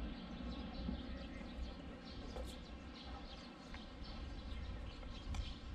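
Faint outdoor ambience: a steady low rumble with scattered short, high-pitched chirps.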